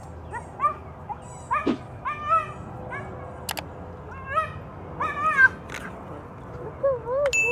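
Dog yipping and barking, a string of short high-pitched yips with a few sharp clicks between them.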